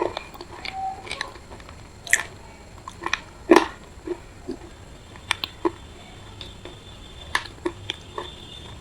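Close-up chewing and crunching of a piece of wet, gritty red clay: irregular crisp crunches and mouth sounds, the loudest about three and a half seconds in.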